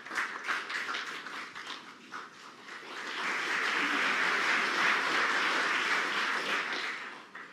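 Snooker arena audience applauding: scattered claps at first, swelling to full applause about three seconds in and dying away near the end.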